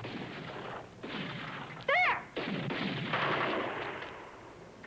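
Gunfire in a film action scene, in a dense, noisy mix, with a short high-pitched sound that rises and falls about two seconds in.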